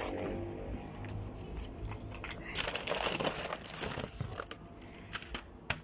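Packaging being handled and crinkled by hand, irregular rustling with scattered sharp clicks, loudest about two and a half to three and a half seconds in.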